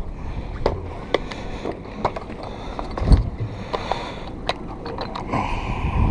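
Scattered light clicks and knocks of fishing tackle and gear being handled in a small boat, with a heavier thump about three seconds in, over a low steady rumble of wind and water against the hull.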